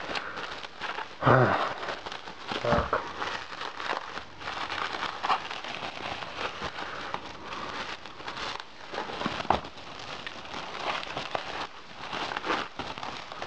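Bubble wrap and clear plastic film crinkling and rustling as they are handled and pulled open, a dense run of small crackles, with a louder burst of handling about a second in.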